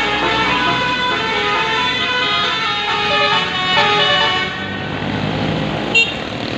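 Bus's musical multi-tone telolet horn playing a tune of stepped notes, several notes a second, for about the first four and a half seconds. Then it stops, leaving the bus's running noise with one short sharp click near the end.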